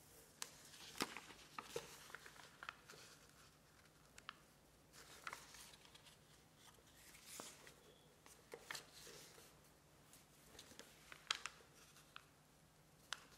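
A square sheet of origami paper rustling and crinkling as hands fold it and press down the creases. It comes as faint, scattered crackles, with a few sharper ones.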